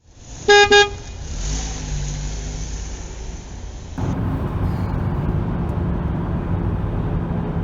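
A car horn beeps twice in quick succession, followed by vehicle and road noise; about four seconds in, a louder steady low road rumble takes over.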